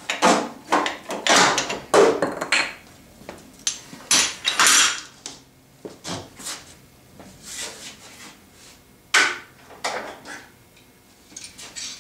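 Metal clanks and knocks as a pipe clamp is loosened and taken off a steel table-saw fence guide rail. A quick run of irregular knocks comes over the first five seconds, then a few more about nine to ten seconds in.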